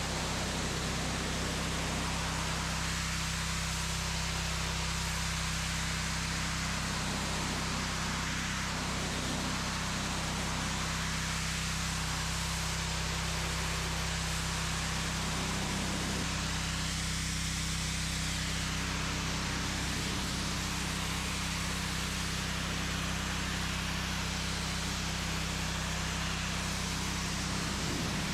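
Pressure washer running steadily: a constant motor and pump hum under the hiss of the water jet spraying the car's bodywork.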